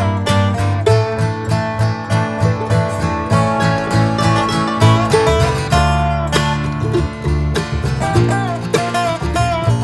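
Background music: upbeat acoustic guitar picking, bluegrass or country in style.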